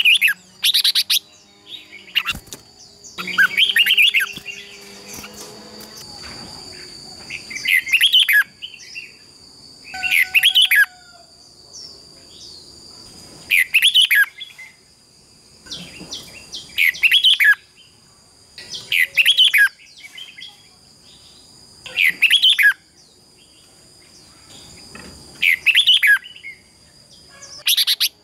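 Red-whiskered bulbul giving its competitive song: loud, short, bubbling phrases repeated every two to three seconds, about ten in all, over a faint steady high-pitched tone.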